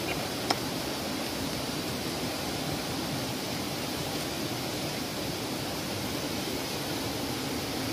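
Steady rushing of flowing river water, with one short sharp click about half a second in.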